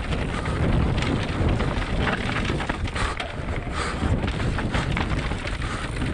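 Wind buffeting the microphone of a mountain bike's action camera during a fast descent of a dirt singletrack, over the rumble of knobby tyres on dirt and the bike's many small clicks and rattles over bumps.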